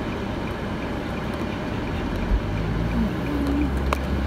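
Steady low rumble and noise of a moving vehicle, heard from inside, growing a little louder about three seconds in.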